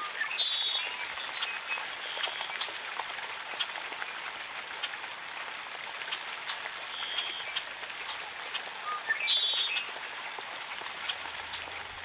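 Small birds singing and calling over a steady crackling hiss. A short buzzy, trilled call comes about half a second in and again near the end, with single whistled notes in between.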